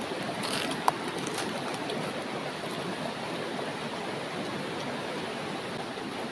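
Shallow river rushing steadily over rocks, with a single sharp click about a second in.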